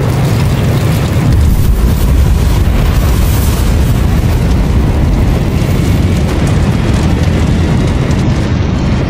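Documentary sound effect of a cataclysmic blast and firestorm: a loud, continuous deep rumble with a hiss over it, swelling slightly about a second and a half in.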